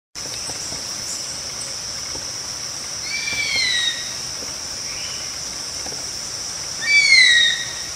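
A steady, high insect drone, like crickets or cicadas, with a bird cry twice: each a single call under a second long that arches and then falls, about four seconds apart.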